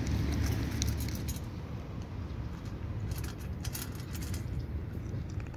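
A cat crunching dry kibble from a stainless steel tray: quick, irregular clicks and crunches, with pieces of kibble clinking against the metal, over a steady low rumble.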